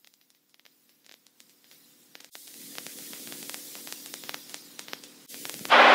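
Radio static on the aircraft's headset audio: near silence for about two seconds, then a steady hiss with a faint low hum and scattered clicks, rising to a brief louder rush just before a voice comes in near the end.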